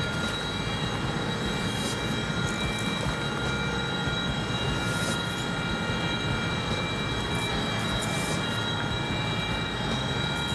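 Steady machinery drone from a nearby offshore oil platform, with several high whining tones held steady over a constant rumbling noise.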